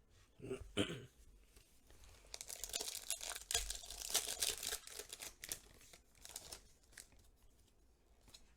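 Foil booster-pack wrapper being torn open and crinkled, a dense crackling that runs from about two seconds in to about seven seconds, after a brief vocal sound near the start.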